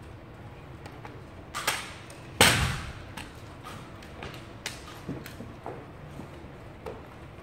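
Knocks and thuds from an armed exhibition drill with a rifle. The loudest is a heavy thud about two and a half seconds in that rings on in the hard-walled gym, with a smaller one just before it. Several lighter knocks follow in the second half.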